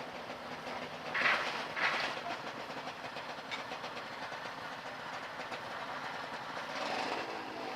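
Motorcycle engine running with a steady rhythmic clatter, two short louder bursts about a second in, and a rev rising near the end.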